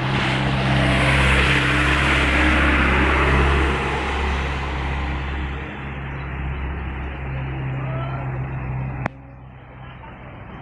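A bus passing close by, its engine running with a steady low drone under a loud rush of noise that swells and then fades. The sound breaks off abruptly with a click about nine seconds in, leaving a quieter background.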